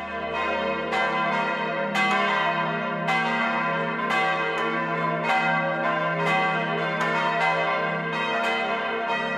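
Several church bells ringing together, strokes overlapping about every half second to second with a long, humming ring that fills the gaps.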